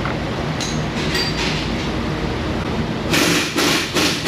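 Steady, rattling mechanical rumble of machinery running in the shop, with a few short, louder bursts of noise in the last second.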